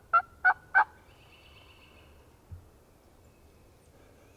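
The last three notes of a turkey's yelping series, sharp and evenly spaced at about three a second, ending about a second in. A faint thud follows about two and a half seconds in.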